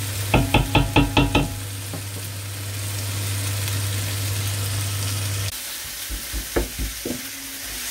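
Onion-garlic paste with tomato and ginger sizzling as it fries in a pot while a wooden spoon stirs it. In the first second and a half the spoon knocks against the pot about seven times in a quick, even run, and a few more knocks come later.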